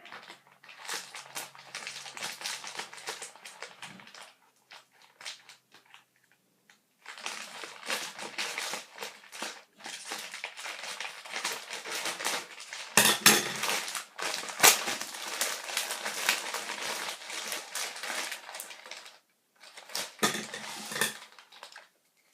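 A parcel being opened by hand: cardboard and packaging crunching and rustling in long stretches, with a few sharp knocks partway through.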